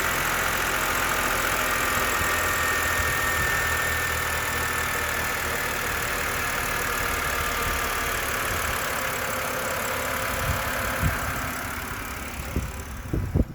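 BMW engine running at idle, with a steady high-pitched whine over it: the strange noise that the owner is trying to pin down. Near the end the sound fades and a few sharp knocks are heard.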